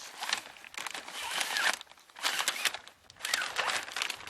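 Kayak sail cloth crinkling and rustling in handling as the batten is pushed into its pocket through an opening in the side of the sail, in three bursts of crackly rustling with short pauses between them.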